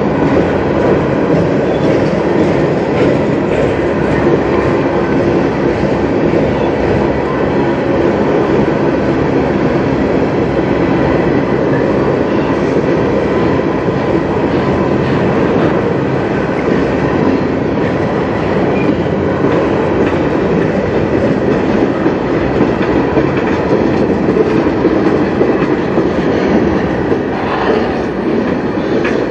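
Flatcars and tank cars of a CN manifest freight train rolling past at steady speed: a loud, even rumble of steel wheels on the rails.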